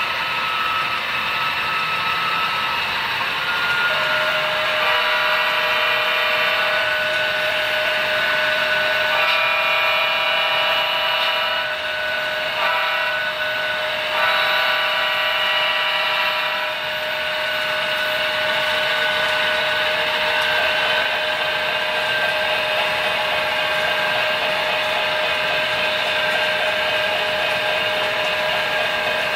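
HO scale model freight train rolling past with its diesel locomotive sound running, a steady mechanical whine throughout. Between about five and seventeen seconds in, a pitched horn-like sound blows in several separate blasts as the locomotives reach the grade crossing.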